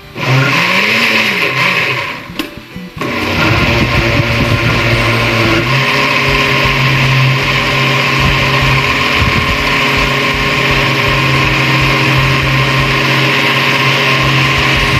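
Electric blender motor running as it blends barbecue sauce; it stops briefly about two and a half seconds in, then starts again and runs steadily.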